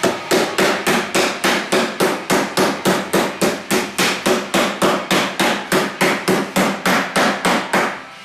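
Body hammer striking the hem flange of a new steel door skin against a hand-held dolly, folding the hem seam: a steady run of sharp metallic blows, about three and a half a second, that stops near the end.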